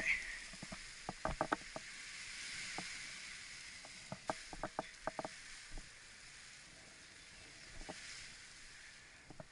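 Paraglider wing fabric and lines rustling in the wind as the wing comes down onto the grass, a steady hiss that swells a little a few seconds in. Scattered sharp clicks and taps come in two clusters, about a second in and again about four to five seconds in.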